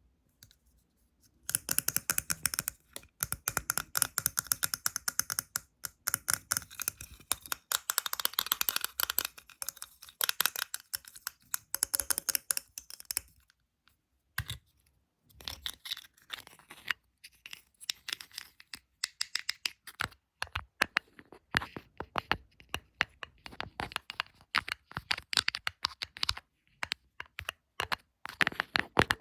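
Close-miked fingernail tapping and scratching. It starts as a dense, rapid run of taps and scratches, then thins out about halfway into sparser taps and short scratches with brief pauses.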